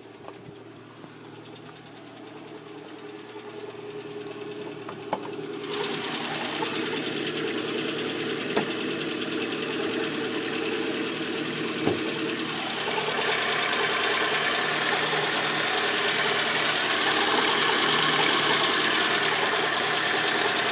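Lada Granta engine idling cold with a knock, a rattle that is worse the colder the engine is. A broad hiss rises in two steps, about six seconds in and again around thirteen seconds, over the steady engine note, with a few single clicks.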